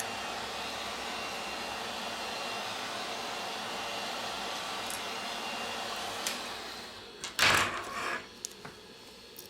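Heat gun blowing a steady stream of hot air, which cuts out about seven seconds in, followed by a short loud clatter.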